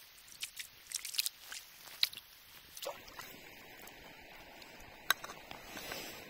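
A hooked arctic char splashing and thrashing at the water's surface in a quick run of sharp splashes. After about three seconds the splashes give way to a steadier hiss as the fish comes out of the water, with one sharp click about five seconds in.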